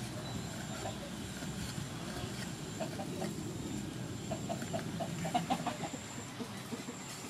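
Chickens clucking in the background, in short repeated bursts, with soft knocks of a cleaver slicing raw beef on a wooden chopping board.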